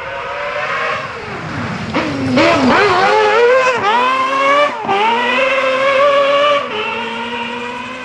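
Rally car engine revving hard, its pitch climbing and dipping sharply several times, then dropping to a lower, steadier note near the end.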